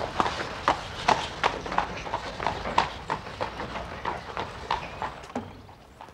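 A horse's hooves clip-clopping at a walk, about three strikes a second, as a horse-drawn hansom cab pulls away, growing fainter as it recedes.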